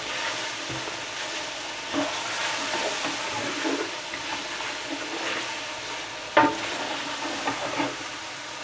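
Tomato, onion and spice masala sizzling in oil in a large metal pot while a spoon stirs it, scraping the pot now and then: the bhuna (frying-down) stage of a curry base. A sharper clink of the spoon against the pot stands out about six seconds in.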